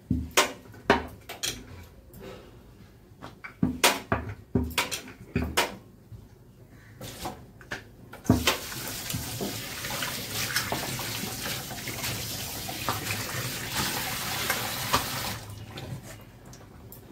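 Several sharp knocks of a wooden rolling pin and dough against a stone rolling board. About eight seconds in, steady running water starts and goes on for about seven seconds before stopping.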